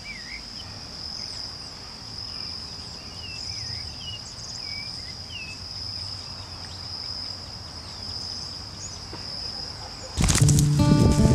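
Insects drone steadily at a high pitch, with short chirping bird calls scattered through. Music starts abruptly near the end.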